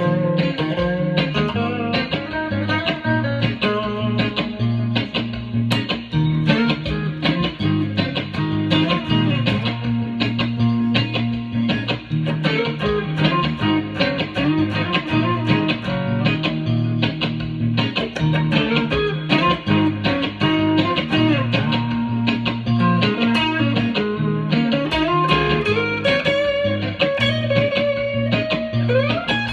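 Guitar-led music from a song demo recording: guitar lines over a steady bass, with a long upward slide in pitch near the end.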